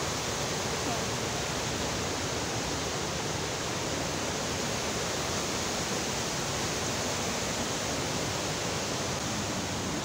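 Steady rush of a waterfall and rapids in flood, heavy muddy water pouring over rocks.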